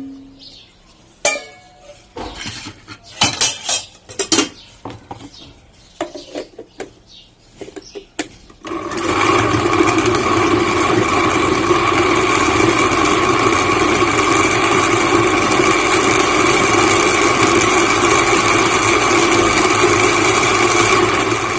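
A few knocks and scrapes as a pan is emptied into a steel grinder jar and the lid put on; then, about nine seconds in, an electric mixer-grinder's motor starts abruptly and runs loud and steady, pureeing the boiled, softened tomatoes.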